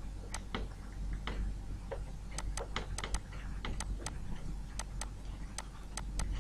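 Light, irregular clicks and taps of a pen stylus on a tablet while handwriting, a few per second, over a faint steady low hum.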